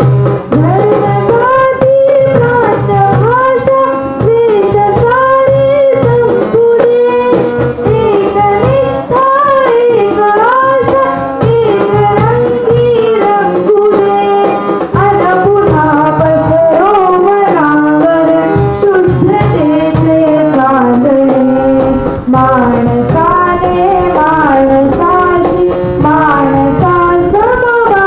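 A girl singing into a microphone to harmonium accompaniment.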